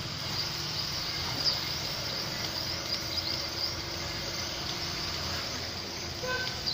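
Water running steadily with a hiss, with a low hum underneath, while a gas water heater's heat exchanger is being cleaned.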